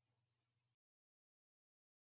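Near silence: very faint room tone that cuts to complete digital silence under a second in.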